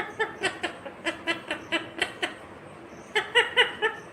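Indian ringneck parrot chattering in short, quick, laugh-like notes, about four a second, then after a brief pause a shorter burst of four notes near the end.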